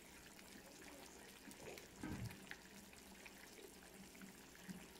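Fish curry boiling in a clay pot, its bubbles popping faintly and irregularly, with a slightly louder bubble about two seconds in.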